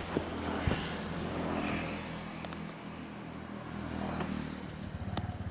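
A motor vehicle's engine running steadily on the move: a low hum with some road noise and a few light clicks.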